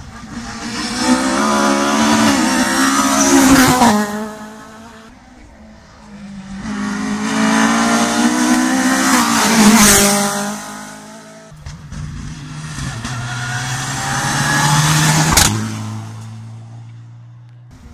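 Rally cars at full speed, three passes in turn. On each pass an engine grows loud as the car closes in and revs hard with rising and falling pitch through the gearchanges, then fades as the car goes by.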